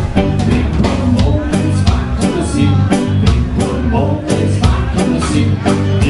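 Live ska band playing with a steady beat: electric guitar and drum kit, with a singer's voice over the top.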